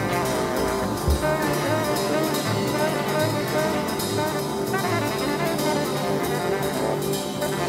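Live jazz band playing, with a saxophone melody over bass and drums with cymbals.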